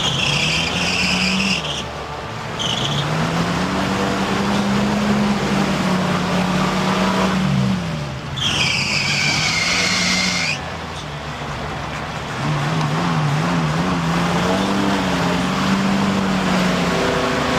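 Jeep CJ Renegade's engine revving hard under load and easing off several times as it churns its tyres through deep mud. A high squeal comes twice: briefly near the start, then for about two seconds around the middle.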